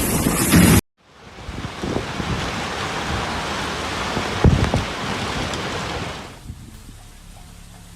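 Storm wind and rain rushing over the microphone, cut off abruptly just under a second in. A second stretch of storm noise then builds, with a couple of sharp thumps about four and a half seconds in, and falls to a quieter, steady rush about six seconds in.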